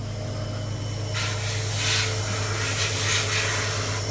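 Hiss of a spray, starting abruptly about a second in and cutting off near the end, over the steady low hum of running shop machinery.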